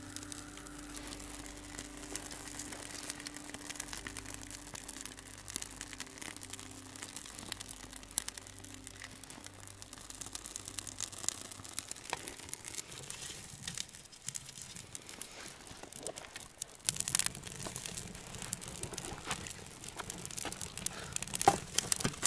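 Irregular crackling, rustling and clicking of work in a wood stove's firebox, which is full of old coal and ash. It gets busier and louder about seventeen seconds in.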